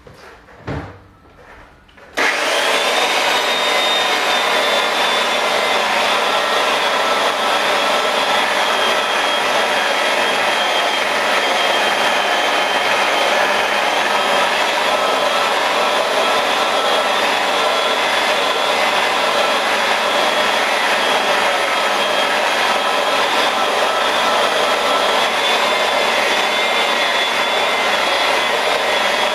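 Electric rotary polisher with a foam pad switched on about two seconds in and running steadily on the car's paintwork, a high whine over the motor's hum. It is buffing cut-and-fill compound over a touched-up key scratch to level and blend the repair.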